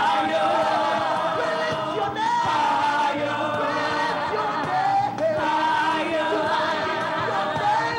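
Small gospel choir singing a worship chorus into microphones, several voices together on long held, wavering notes.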